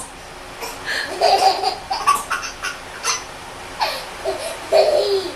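Baby laughing hard in short bursts, about five in a few seconds.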